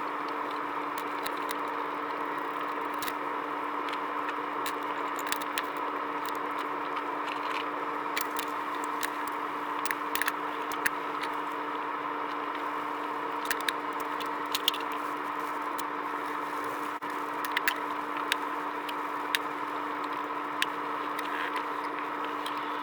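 Steady mechanical hum from a small motor, with scattered light clicks and scrapes from something being handled.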